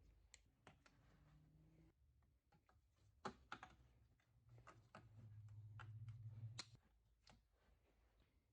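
Faint scattered clicks and light knocks, with a low hum that swells for about two seconds past the middle.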